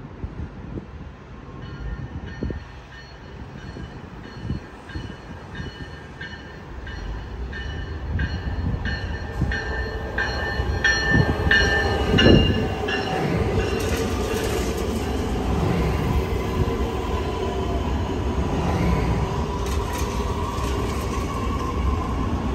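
Metra Electric bilevel electric multiple-unit train arriving at a station platform: a bell rings rapidly and evenly for the first dozen seconds as the train's rumble grows, then steady wheel-on-rail noise and a faint motor whine as the cars roll past.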